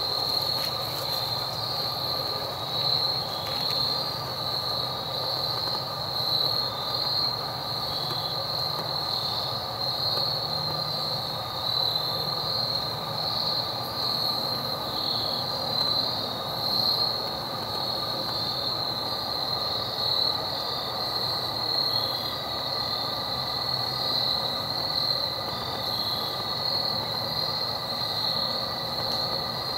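Insects droning in a steady, high-pitched chorus that swells slightly every second or two.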